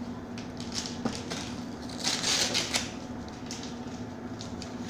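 Rustling and crinkling of paper or packaging being handled, with a louder spell of crinkling about two seconds in, over a steady low hum.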